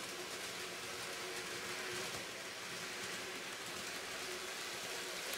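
N-gauge model train running on its track: a steady, fine rattling hiss of small wheels over the rails, with a faint steady hum under it.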